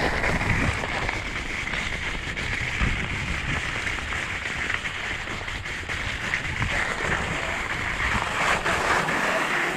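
Wind buffeting a GoPro's microphone during a downhill ski run, with skis hissing and scraping over chopped-up snow. The low wind rumble eases near the end as the run slows.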